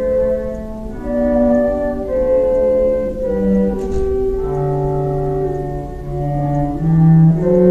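Organ playing slow, sustained chords that change every second or so, with deeper bass notes coming in about halfway through.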